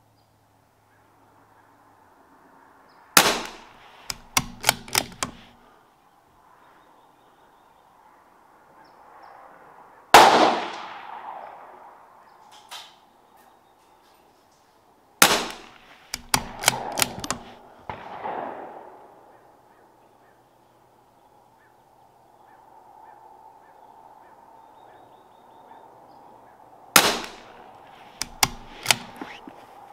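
CZ 457 .22LR bolt-action rifle firing three single shots about twelve seconds apart, each followed by a quick run of clicks as the bolt is worked to eject the case and chamber the next round. A louder single report with a longer echo comes about ten seconds in, with no bolt clicks after it.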